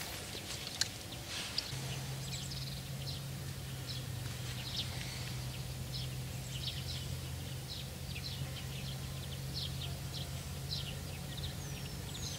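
Small birds chirping in short high notes, with a couple of sliding whistled calls near the end. A faint steady low hum sets in about two seconds in.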